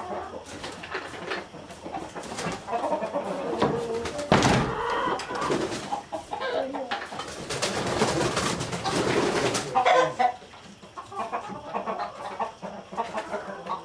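A flock of chickens clucking and crooning in the coop as they settle in to roost, with louder rushes of noise about four seconds in and again around eight to ten seconds.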